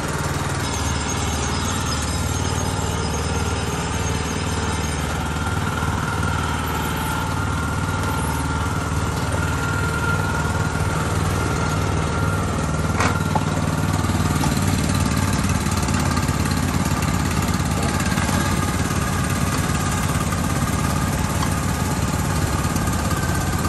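Snowblower engine running steadily at idle, with a single sharp click about 13 seconds in.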